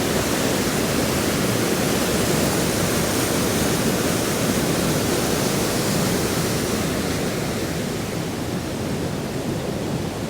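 Waterfall: water pouring down over rock into a pool, a steady loud rushing noise, easing slightly toward the end.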